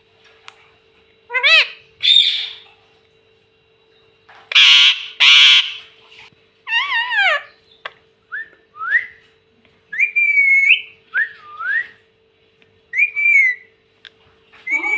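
Pet ringneck parrot calling: a few loud, harsh screeches, then a run of short whistled calls that rise and fall in pitch.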